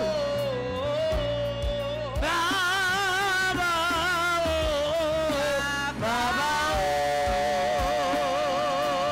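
A woman singing a gospel worship song, drawing out "Papa-o" in long, wavering held notes, over band accompaniment with a steady beat.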